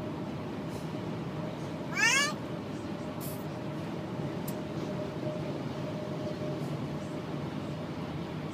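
A toddler's single short, high-pitched squeal about two seconds in, over the steady hum of a car driving on the road.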